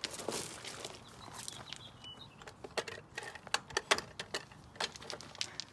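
A jack being worked by hand under the lower control arm, sharp metallic clicks and knocks coming irregularly, loudest about three to four seconds in, as it pushes the suspension up to compress the coilover spring into place.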